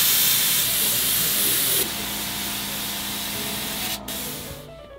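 Gravity-feed air spray gun spraying a leather boot: a loud, steady hiss of compressed air and spray. It drops in level about two seconds in, cuts out for a moment near four seconds, resumes, then fades away just before the end.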